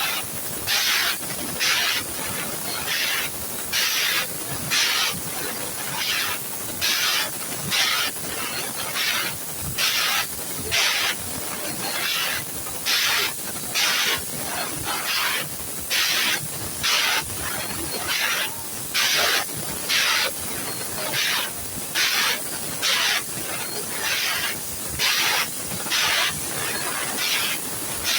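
CNC machine giving short, sharp hisses of air about once a second, sometimes two close together, over a steady high hiss.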